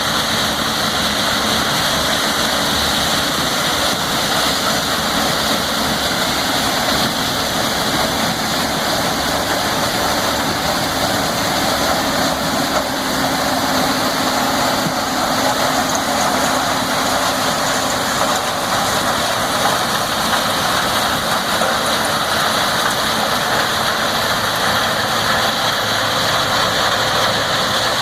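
Massey Ferguson 6690 combine harvester running steadily while harvesting corn: a constant engine and machinery drone with a continuous hiss.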